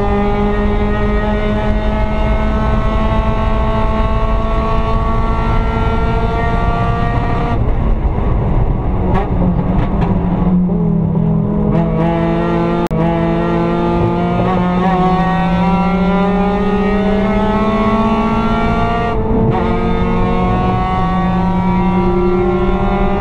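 Mazda Miata race car's four-cylinder engine at full throttle, heard from inside the stripped cabin, its note climbing slowly. About seven seconds in the throttle comes off and the note drops and wavers as the car slows for a corner. Then it climbs again under power, with a quick upshift and drop in pitch a few seconds before the end.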